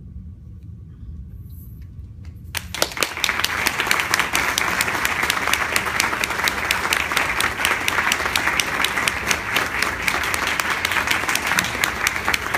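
Audience applause, starting suddenly about two and a half seconds in and going on steadily, after a low rumble.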